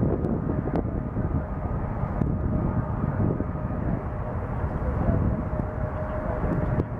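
McDonnell Douglas MD-11 trijet's engines at takeoff thrust, heard from behind as it rolls away down the runway: a steady, deep rumble with a faint steady whine above it.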